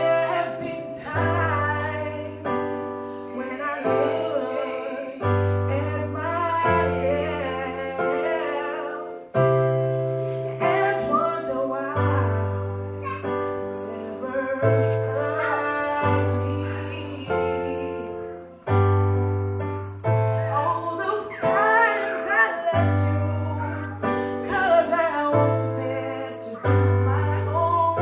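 A voice singing a melody over piano chords, each chord struck and left to fade, with a bass note under each.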